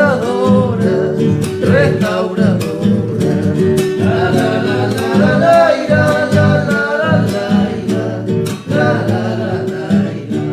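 A song sung to acoustic guitar accompaniment, growing quieter near the end.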